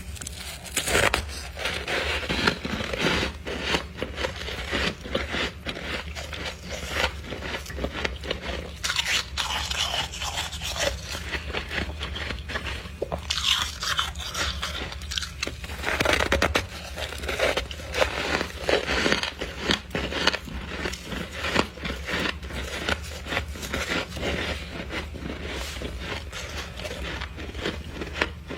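Person biting and chewing freezer frost close to the microphone: dense, irregular squeaky crunching and crackling, over a low steady hum.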